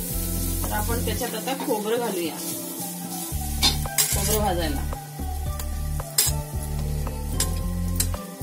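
Chopped onions sizzling in a hot pan as a spatula stirs them, with a few sharp clicks of the spatula against the pan. Background music with a steady bass line and a melody runs under it.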